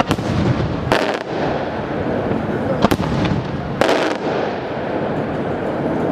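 Fireworks going off, with sharp bangs about a second in, near three seconds and near four seconds over a continuous noisy rumble of further explosions.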